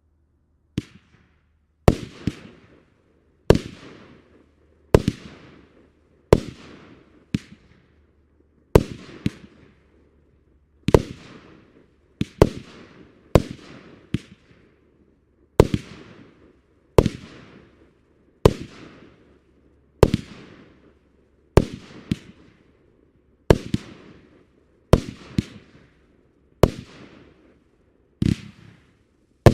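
Fireworks going off in a long run of sharp bangs, roughly one every second and a half, each followed by a fading tail.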